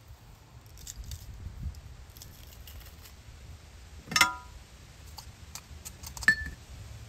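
Stainless-steel garlic press and chef's knife clinking over a small ceramic bowl: scattered light clicks, then two sharp ringing clinks about four and six seconds in.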